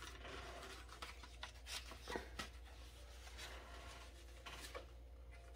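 Faint rustles and light taps of cardstock strips being handled and laid down on a paper-crafting mat, over a low steady hum.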